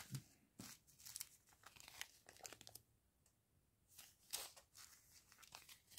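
Small clear plastic zip bags of round diamond-painting drills crinkling faintly as they are handled, in scattered short rustles.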